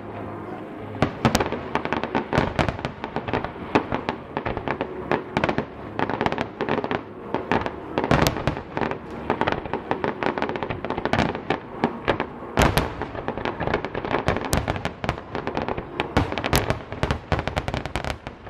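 Fireworks display: a dense, continuous barrage of bangs and crackling bursts, the loudest reports coming at irregular moments, several a second.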